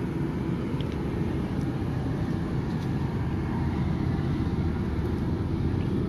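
Cummins Onan QD 12500 12.5 kW diesel generator, driven by a three-cylinder Kubota engine, running steadily with a low, even hum much like an air conditioner.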